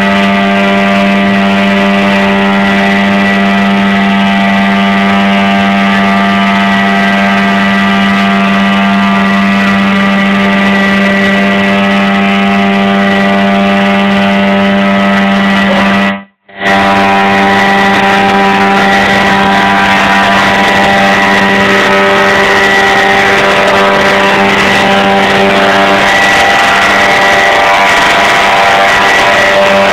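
Boat engine running close by at a steady, unchanging speed. It cuts out for a moment about halfway through, then carries on.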